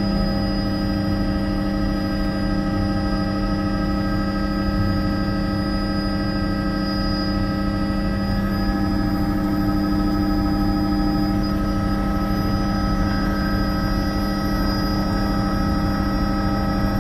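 Cabin noise of a Bell 206B JetRanger III helicopter in cruising flight: the Allison 250 turboshaft and rotors run at a steady loud drone, with several constant whining tones over a low rumble.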